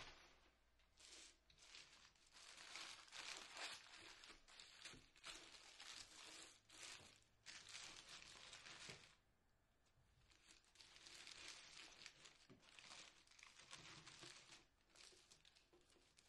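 Paper burger wrapper crinkling and rustling as it is unwrapped by hand, in irregular bursts with a short lull about nine seconds in.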